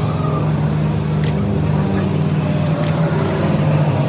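Steady low hum of a motor vehicle engine running close by in street traffic, with a few short, light clicks.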